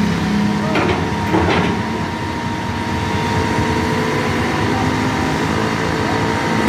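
Caterpillar 320 GC excavator's four-cylinder diesel engine running steadily under load as the machine crawls up steel ramps onto a lowboy trailer, with a steady whine over the engine's rumble and a couple of short knocks early on.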